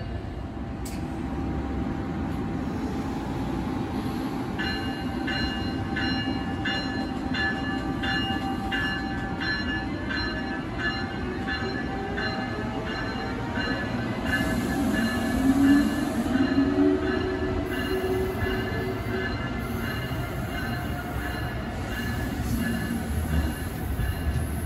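Amtrak train, hauled by an ACS-64 electric locomotive, moving along the platform with a steady rumble. From about five seconds in, high-pitched wheel squeal rings over it, and a rising whine comes in around the middle.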